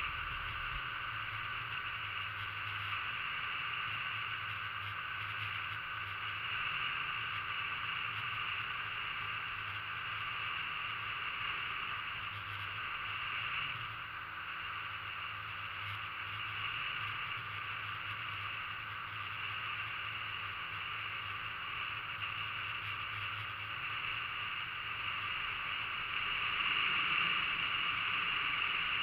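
Ob-M or Ob-1 aluminium motorboat under way, its outboard motor running steadily with the rush of water, getting a little louder near the end.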